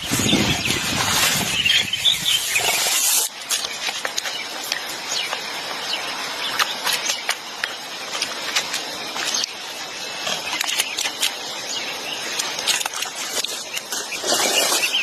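Water splashing for about three seconds, then a long run of short, sharp, high squealing calls from birds.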